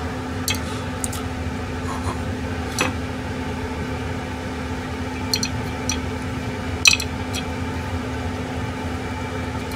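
Steady electric hum of a kitchen appliance fan, with scattered light clicks and clinks of chopsticks and metal skewers against a grill rack and a porcelain plate, the sharpest about seven seconds in.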